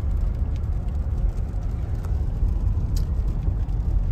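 Car cabin noise while riding as a passenger: a steady low rumble from the engine and tyres on the road, with a couple of faint clicks about two and three seconds in.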